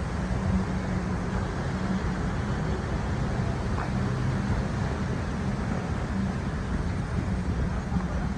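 Steady low hum and rumble of an SMRT R151 electric train beside the platform, over station background noise.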